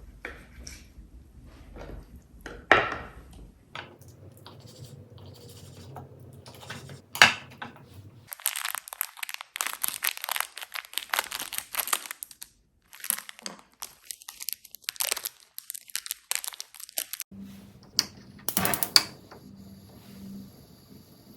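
Crinkling, tearing and crunching rustle of something being handled, in a dense run through the middle, with a few single sharp knocks before and after.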